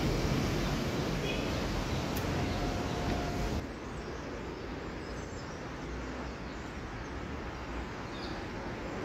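Steady outdoor background noise, a hiss and low rumble of wind and road traffic, which drops suddenly about a third of the way through.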